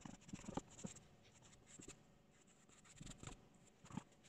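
Paintbrush scrubbing paint onto a hard, dried plaster-bandage hillside: faint scratchy brush strokes in the first second, a pause, then a few more strokes near the end.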